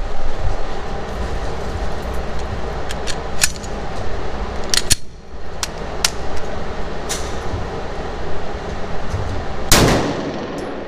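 A single loud gunshot near the end from a 9mm Glock 19 pistol fired at close range, ringing off the walls of an indoor range. Before it, a few thinner, sharper cracks and clicks sound over a steady low rumble.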